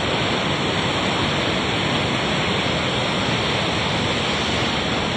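Floodwater of a river in spate rushing past, a steady, loud, even noise of churning water.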